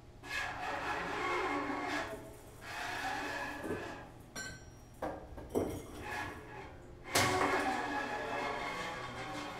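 Experimental improvised noise from glass bowls and objects handled on a tabletop: several bouts of rubbing and clinking that start suddenly, with faint ringing tones through them.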